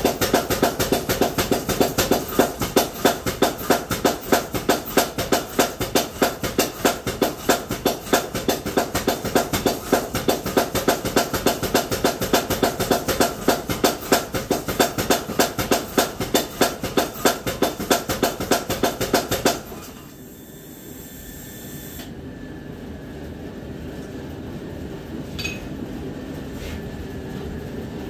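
Background music with a fast, steady beat that cuts off abruptly about twenty seconds in. After it stops there is quieter background noise with a couple of light metallic clinks.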